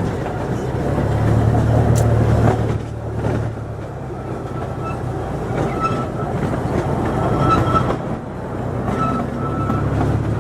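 Tourist train running along its track: a steady rumble of the cars rolling, with a low engine hum underneath. There is one sharp click about two seconds in, and a few short high squeals from the wheels in the second half.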